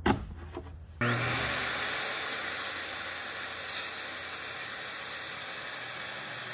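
A sharp knock right at the start, then about a second in a corded circular saw starts cutting through a plywood sheet and runs steadily through the cut.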